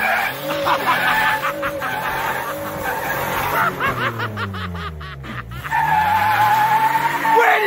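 Pickup truck engine revving hard while its tires squeal and skid as it slides around on pavement. The engine pitch rises and falls repeatedly, sweeping down about five seconds in, and a steady high tire squeal holds through the last couple of seconds.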